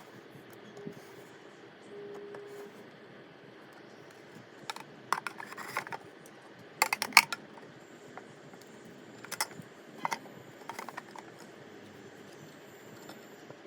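Small hard plastic object being handled, likely the mini-fridge pen holder: scattered clicks and light knocks, with the loudest clatter about seven seconds in.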